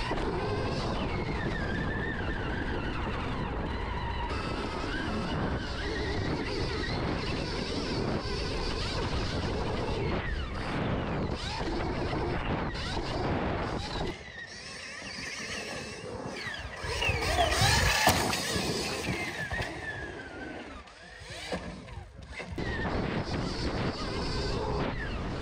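Dirt bikes riding, their motor pitch rising and falling with the throttle over a steady rush of noise. The sound changes character about two-thirds of the way through, where the pitch sweeps are loudest.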